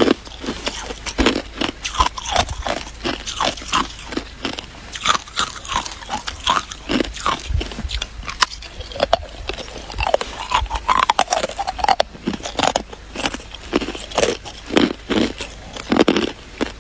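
Ice being bitten and chewed: a steady run of loud, sharp crunches, a few a second.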